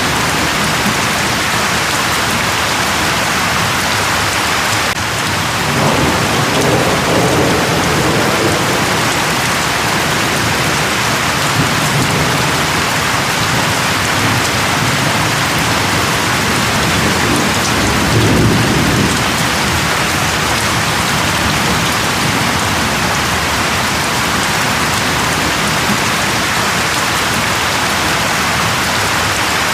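Steady heavy rain falling, with low rumbles of distant thunder rolling in about six seconds in and again around eighteen seconds in.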